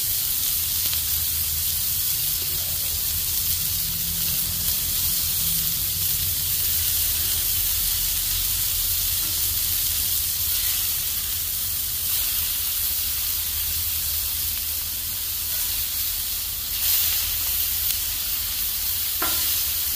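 Beef smash patties and chopped onions sizzling steadily on a hot flat-top griddle, with a low steady hum underneath. A metal spatula scrapes under the patties to flip them, with short scrapes near the end.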